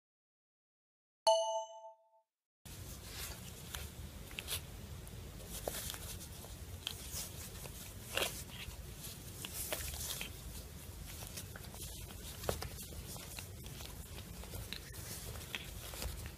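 A short bell-like chime about a second in: the subscribe-button sound effect. From about three seconds, a steady low background noise with scattered scratches and rustles as a Sphynx cat squirms and paws on a denim-covered lap.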